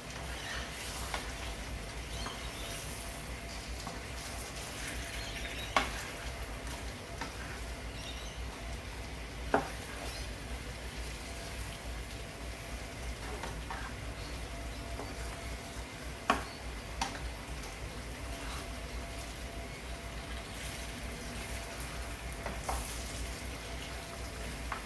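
Pieces of mullet fish frying in oil and spice paste in a karai, a steady sizzle with three sharp clicks along the way.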